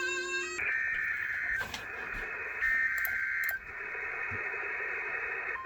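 Emergency Alert System SAME header data bursts relayed over a radio station, breaking in about half a second in as the station's music cuts off. The bursts come in repeated blasts about a second long, heralding a severe thunderstorm warning.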